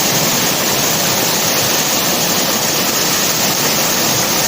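Waterfall and river water rushing, a loud, steady roar.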